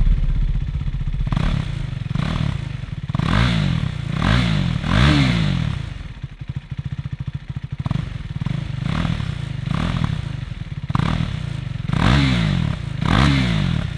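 KTM RC 390 single-cylinder engine running through an Austin Racing slip-on exhaust. It starts at the very beginning, then is revved in short blips again and again, settling back to idle between them.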